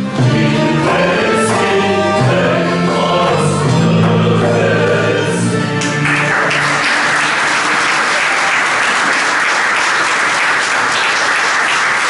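Turkish folk music ensemble of bağlama lutes with voices playing the last held notes of a piece, then cutting off about six seconds in as audience applause breaks out and continues.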